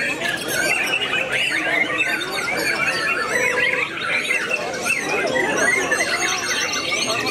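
White-rumped shamas (murai batu) singing in competition, several at once: a dense, unbroken tangle of quick whistles, chirps and trills.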